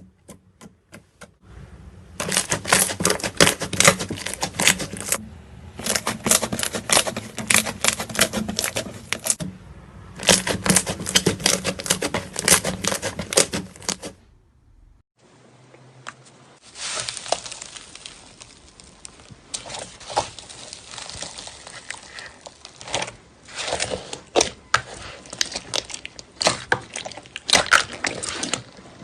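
Slime being squished and stretched by hand, giving rapid clicking and crackling pops. There are three runs of about four seconds each, then a short pause, then a softer, steadier run of crackles and pops.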